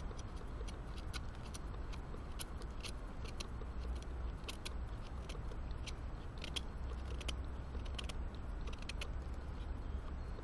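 Scandi-ground PLSK1 bushcraft knife cutting and shaving a small piece of wood: irregular crunching scrapes and sharp clicks, several a second. A steady low rumble runs underneath.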